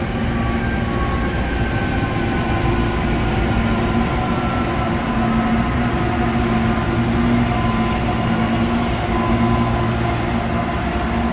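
QL class diesel-electric freight locomotives passing close by, their engines running with a loud, steady drone and a slowly falling whine.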